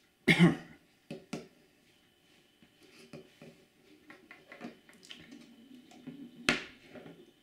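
Handling noise from plugging a 3.5 mm jack adapter cable into a Røde wireless mic receiver and handling the receiver and an iPhone: a loud knock about a third of a second in, two clicks just after, light ticks and taps, and a sharp click near the end.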